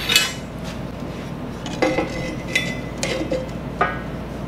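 Steel parts being handled on a steel welding bench: about half a dozen sharp metallic clanks and clinks, the loudest at the start, some ringing briefly. A steady low hum runs underneath.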